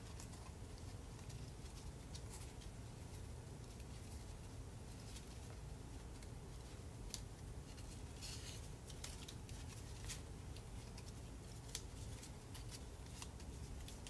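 Faint crinkles and ticks of paper being folded and pressed together by hand, with a short rustle about eight seconds in, over a low steady hum.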